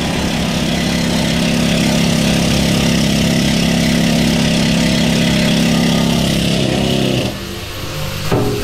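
A power tool running steadily on the steel of the engine room, an even-pitched hum over a broad rasp, that cuts off about seven seconds in.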